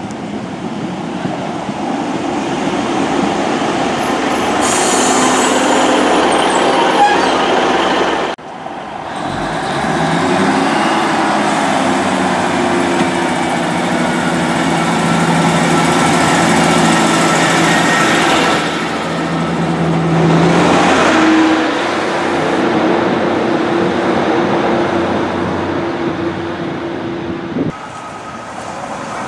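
Class 150 diesel multiple unit running into a station and standing at the platform, its underfloor diesel engines droning steadily. There is a sharp high hiss about five seconds in.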